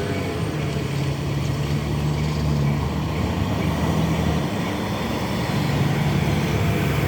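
Diesel locomotive engine running as a train draws near, a low steady drone with a hum that fades and returns and grows slightly louder.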